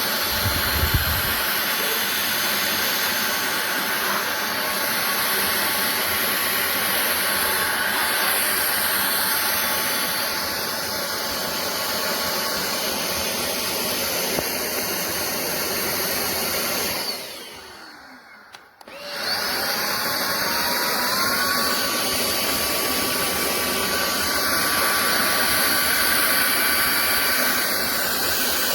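DIFFULL V20 cordless stick vacuum running with a steady rushing whine. About seventeen seconds in the motor cuts out, and after a couple of seconds it starts again with a rising whine as it spins back up to speed.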